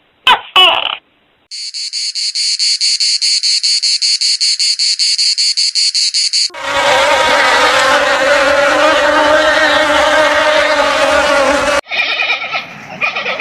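A string of different animal calls played one after another: two short calls, then a fast, evenly pulsed, high-pitched insect-like trill for about five seconds. After that comes a loud, dense chorus of calls that cuts off suddenly, and then another call begins near the end.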